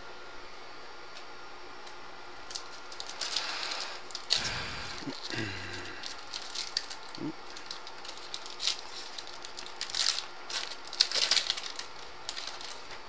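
Trading cards being handled: scattered rustling, sliding and crinkling, with a few sharp clicks, strongest about four seconds in and again near the end.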